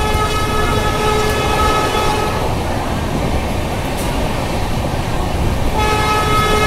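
A train's horn blows two blasts: a steady one-pitched blast of about two and a half seconds at the start, and a second starting near the end. Both sound over the continuous low rumble of the moving train.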